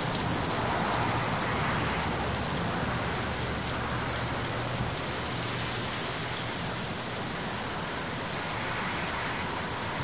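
Strong wind rushing through bare trees, a steady hiss that eases a little toward the end.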